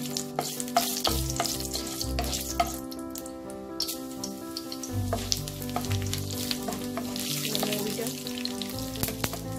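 Dried red chillies, bay leaves and whole fennel seeds sizzling in hot mustard oil in a kadai, for a tempering. A wooden spoon stirs and clicks against the pan, and the fennel seeds are sprinkled in by hand partway through.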